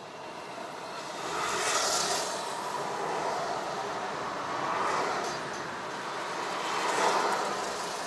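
Road traffic heard from inside a car moving slowly in city traffic: a steady noise of engines and tyres that swells and fades as vehicles go by, loudest about two seconds in and again near the end.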